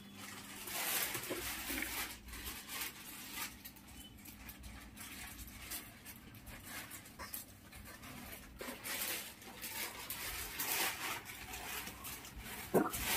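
Quick breathy panting close to the microphone, in irregular puffs, with one brief squeak near the end.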